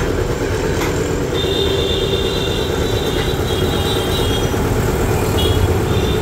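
A 5 HP double-piston, belt-driven air compressor pump, turned by a 3 HP single-phase electric motor, running steadily on its test run. A faint high whine comes and goes over the steady running.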